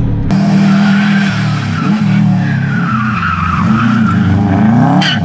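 Hill-climb race car taking a hairpin: engine revs rising and falling as it brakes and accelerates, with tyres squealing through the middle of the turn.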